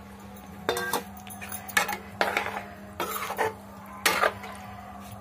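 Perforated steel skimmer ladle stirring a thick egg-and-potato curry in a steel kadai, scraping and clinking against the pan about five times, each stroke ringing briefly.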